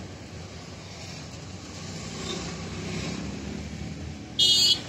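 Steady low background rumble, then about four and a half seconds in a short, loud, shrill electronic chirp from the siren of the car's aftermarket central-locking security system as it is wired up.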